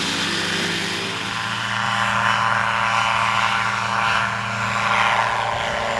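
Ultralight trike's engine and pusher propeller running steadily as the trike rolls along the airstrip, the sound growing a little louder about two seconds in.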